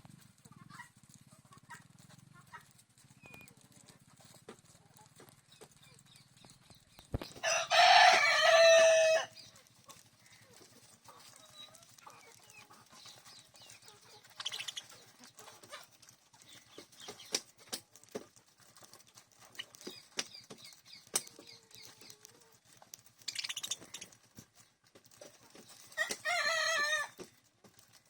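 A rooster crowing loudly once, about eight seconds in, and again more faintly near the end, with faint short chirps of small caged birds in between.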